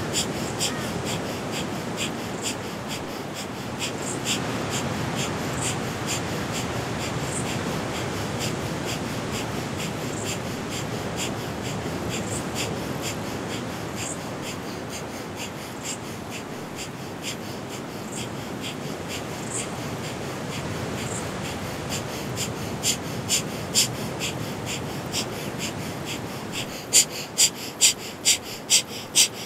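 Breath of fire (kapalabhati-style pranayama): rapid, rhythmic forceful exhales through the nose at about two to three a second, growing louder and sharper near the end, over a steady background hiss.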